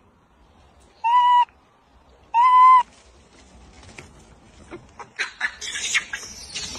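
Baby macaque giving two short, clear coo calls, each about half a second long and about a second apart. Scratchy clicks and rustling build up from about five seconds in.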